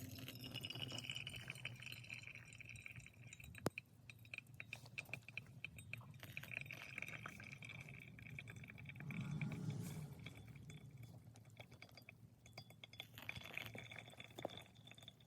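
Small wood fire crackling with many irregular little pops and one sharp snap a few seconds in.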